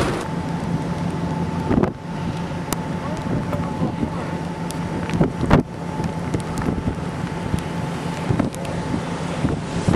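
A vehicle driving, heard from inside: a steady engine hum under wind and road noise, with a couple of sharp knocks.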